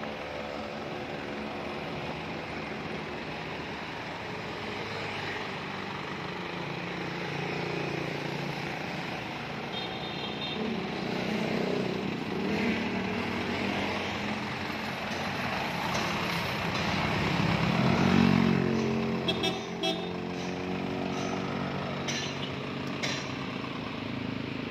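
Isuzu light truck's engine running, growing louder about eighteen seconds in, with a few short sharp clicks soon after.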